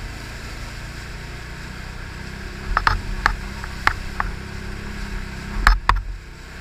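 Can-Am ATV engine running steadily at low trail speed, with a handful of sharp knocks and clacks from about three seconds in, the loudest two close together near the end.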